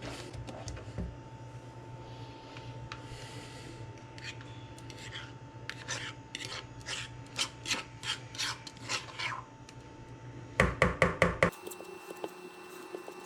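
A kitchen utensil scraping and rubbing in repeated strokes, about two a second, then a quick run of about six louder, sharper strokes; the background changes abruptly right after.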